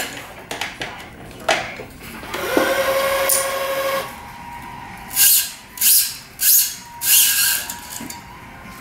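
Wise 2086 electronic tension head whirring for about a second and a half as its motor pulls a badminton string to tension, after a few light clicks. Four short swishing sounds follow, about half a second apart, as the string is worked through the frame.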